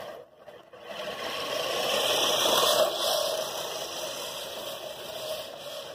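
Manual five-blade push reel lawn mower whirring and clattering as it is pushed through grass, its curved reel blades snipping against the fixed bed blade. It grows loudest about two to three seconds in, then fades as the mower moves away.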